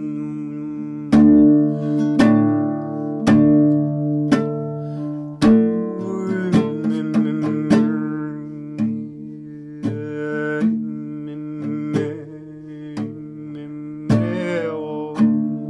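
Music: a plucked string instrument picking single notes, roughly one a second and a little quicker midway, over a steady held drone.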